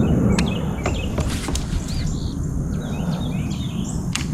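Small birds chirping in short arched calls over a steady low outdoor rumble, with a few sharp ticks.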